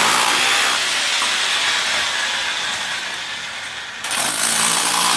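A power tool's motor running with a high whine. It stops less than a second in and fades away, then starts up again abruptly about four seconds in.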